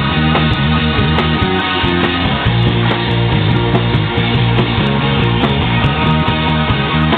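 Rock band playing live, an instrumental passage without singing, with a steady beat of drum strikes over held bass notes.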